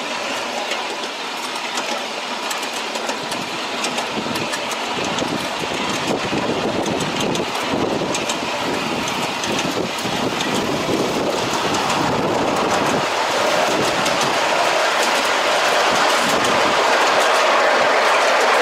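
Steel wheels of a miniature ride-on railway train rolling along the track, with a steady run of clicks over the rail joints. The rolling grows louder towards the end as the cars run onto a steel truss bridge.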